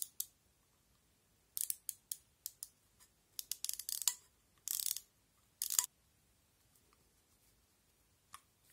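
Light clicking and rasping from a disassembled Škoda 120 speedometer mechanism turned by hand: its small gears and odometer number drums ratcheting round, showing the counter still works. It comes in several short bursts over the first six seconds, with one single click near the end.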